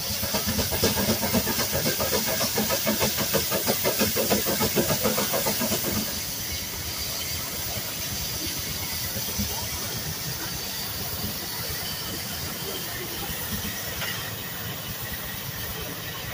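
Advance-Rumely steam traction engine running, its exhaust chuffing in a fast, even rhythm with steady steam hiss. About six seconds in the chuffing drops away to a quieter, steady hiss.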